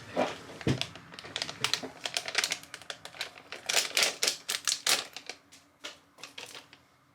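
Typing on a keyboard: a quick, irregular run of key clicks that stops shortly before the end.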